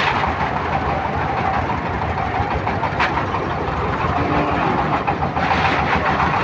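A vehicle engine, most likely the cattle truck's, idling with a steady drone, and one sharp click about three seconds in.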